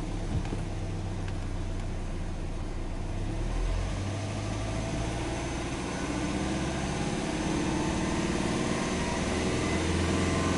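Subaru Legacy 2.5GT's turbocharged 2.5-litre flat-four (boxer) engine, heard from inside the cabin, is held at a steady idle and then revved in neutral. From about four seconds in, the pitch and loudness climb gradually as the engine is brought up to about 3,000 rpm and held there.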